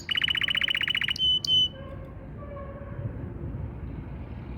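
Canary singing: a fast trill of rapid repeated notes for about a second, then two short high notes, after which the song stops and only faint background sound is left.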